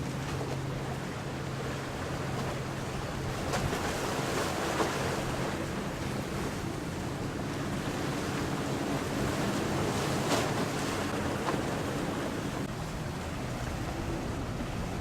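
A motorboat's engine drones steadily, under the rush of water and waves and wind buffeting the microphone.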